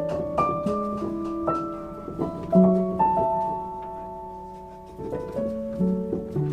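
Background piano music: a slow melody of single held notes over low bass notes.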